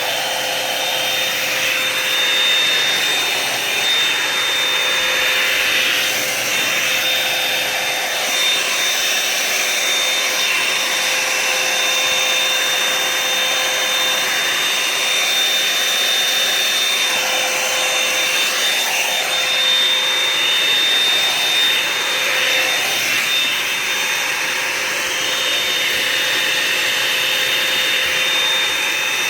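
Revlon One-Step hair dryer and volumizer (a hot air brush) running steadily: a constant rush of blown air over its motor with a thin high whine.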